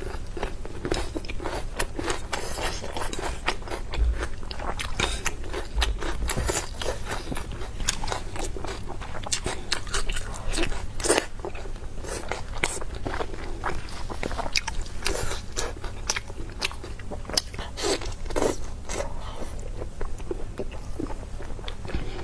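A person biting and chewing meat, with dense, irregular crunches and crackly mouth sounds throughout.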